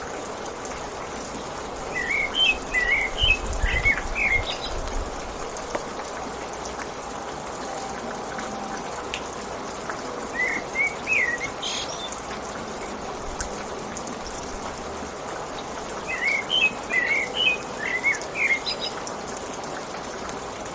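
Steady rain falling, with a songbird singing short chirping, warbling phrases in three bouts: about two seconds in, around ten seconds, and again near the end.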